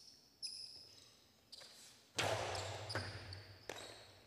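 Jai-alai ball striking the fronton's walls and floor: a few sharp knocks that ring on in the court. The loudest comes about two seconds in.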